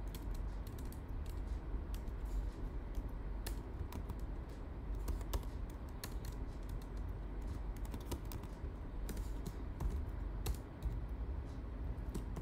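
Typing on a computer keyboard: irregular key clicks, over a low steady hum.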